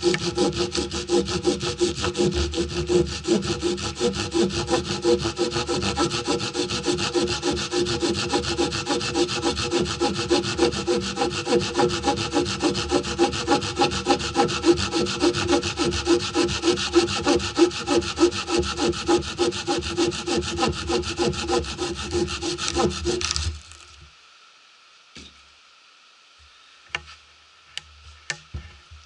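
Hand saw sawing wood in rapid, even strokes that stop abruptly about 23 seconds in. A few faint knocks follow.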